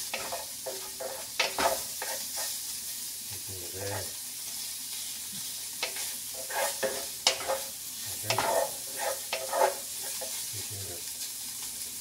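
Diced roast pork sizzling in a hot oiled non-stick pan, stirred with a wooden spatula that scrapes and knocks against the pan in several short clusters over a steady frying hiss.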